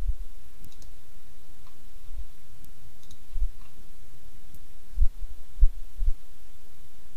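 Computer mouse clicks and a few short, low thumps over a steady background hum, as software settings are picked and a command is run.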